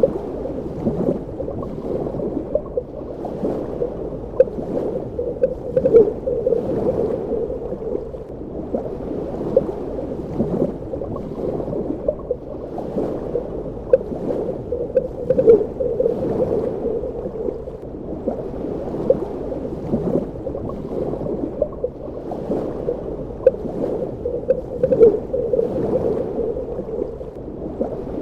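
Underwater ambience: a steady, muffled wash of moving water with frequent small bubbling pops throughout.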